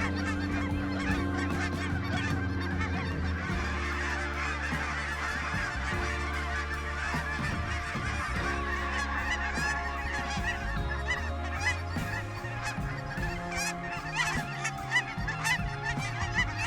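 A large flock of geese honking, many overlapping calls at once, growing denser a few seconds in.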